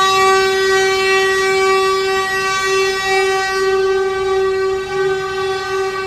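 Truck horn sounded in one long, unbroken blast at a single steady pitch.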